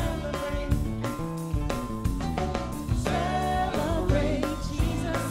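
Live church worship band: a singer over bass, drums and guitar, played back from a service recording while it is mixed.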